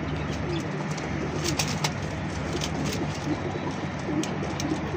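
Domestic pigeons cooing repeatedly in short low calls, with scattered sharp clicks, over a steady low hum.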